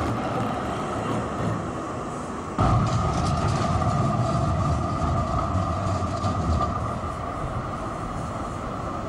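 Street trams running on track over a steady hum: the first tram moves away, then about two and a half seconds in the sound jumps suddenly to a louder low rumble as a second tram rolls close past, easing off near the end.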